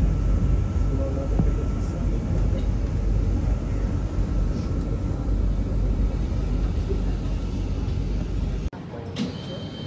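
Steady low rumble of a public-transport vehicle in motion. About nine seconds in it breaks off abruptly, giving way to quieter sound with a thin, steady high tone.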